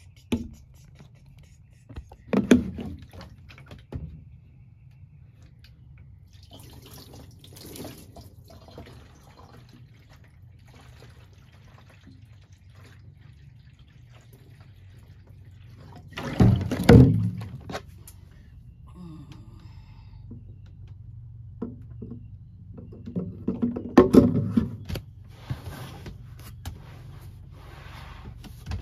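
Clear plastic water jug of a portable camping sink being handled and set in place: scattered knocks and thunks of plastic with water sloshing inside. There is a bigger clatter about halfway through and another near the end, over a steady low hum.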